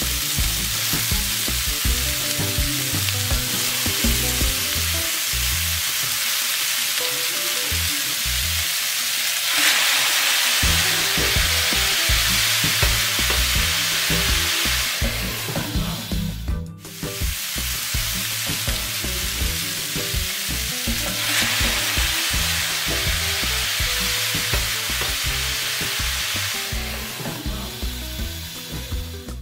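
Chicken breasts and sliced bell peppers with onion sizzling in a frying pan on low heat, a steady frying hiss that cuts out for a moment about two-thirds of the way through.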